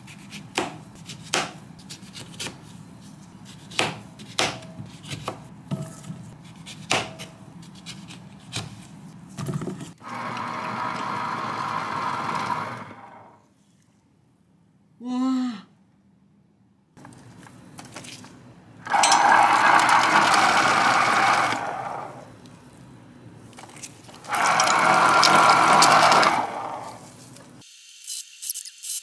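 Knife trimming lemons on a plastic cutting board, a run of scattered clicks and knocks. Then an electric lever citrus press runs in three loud bursts of about three seconds each as lemon halves are pressed down onto its spinning reamer.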